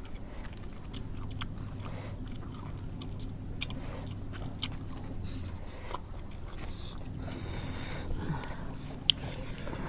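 Close chewing and crunching of mouthfuls of seafood papaya salad, with many small crisp clicks of teeth on crunchy food. A short hissing rustle comes about seven seconds in.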